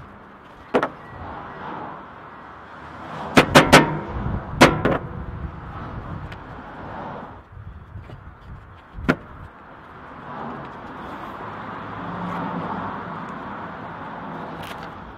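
Scattered sharp knocks of a mallet striking leather on a wooden workbench: one about a second in, a quick run of three a little over three seconds in, then single knocks further on, over a steady background noise.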